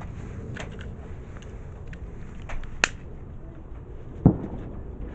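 A butane utility lighter clicks once, sharply, about three seconds in, and a single dull thump follows a little after four seconds. Both sound over a steady low outdoor rumble.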